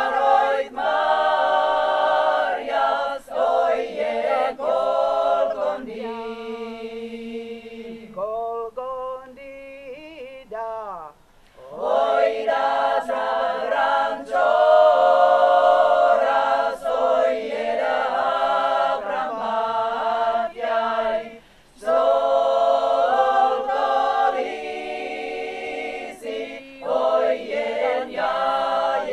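Women's folk-song ensemble singing a cappella in several voices. About eight seconds in the sound thins to a quieter passage for a few seconds, then the full group comes back in.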